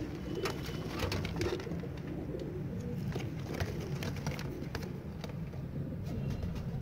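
Domestic pigeons cooing continuously in a small loft box, with scattered sharp clicks and scratches over the cooing.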